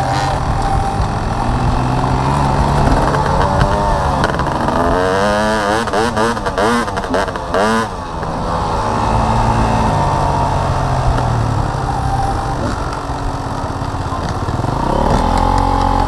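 Enduro dirt bike engine being ridden, heard close up from on the bike, revving up and down on a dirt track, its pitch rising and falling in quick waves through the middle.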